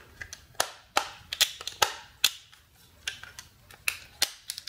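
Spring-loaded plastic safety shutters of a mains socket clicking as a plastic piece is pushed against them and pulled away: about a dozen sharp, irregular clicks.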